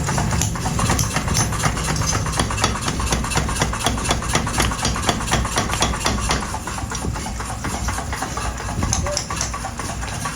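Rapid, evenly spaced metal blows, about five a second, over a steady motor hum: typical of a motor-driven power hammer forging hot steel. The blows weaken after about six seconds.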